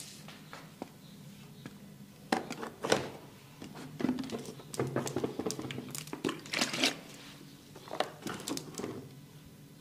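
Close-up hand-massage noises on a person's head and skin: irregular bouts of rubbing and crinkling with a few sharp slaps or knocks, starting about two seconds in.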